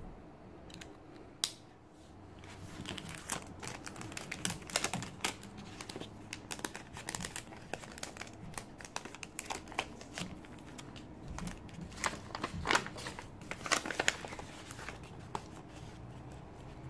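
Paper and plastic packaging crinkling and rustling as it is handled, in irregular crackles, after a single sharp click about a second and a half in.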